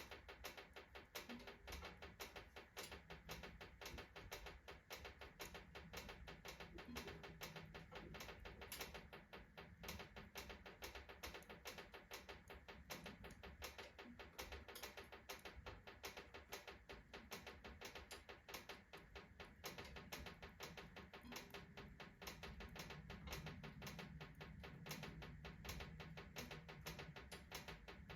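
Kindling and logs burning in a wood-burning stove, a dense stream of small crackles and ticks many times a second, with the stove's iron ticking as it expands under fast heating.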